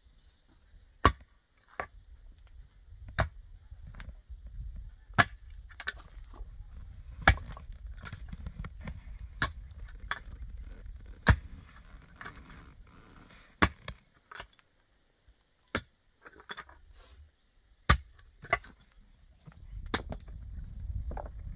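A series of sharp strikes, about ten of them, roughly one every two seconds, with fainter knocks in between.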